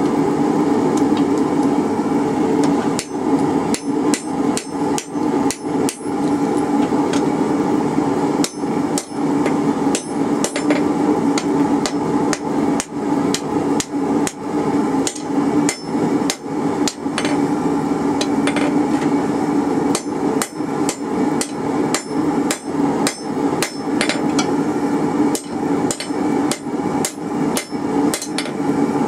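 Hand hammer striking glowing half-inch rebar on an anvil, in runs of about two to three blows a second with short pauses, each blow ringing briefly. The smith is upsetting hot metal back into the bend of a hold-fast to sharpen the corner. A steady low hum runs underneath.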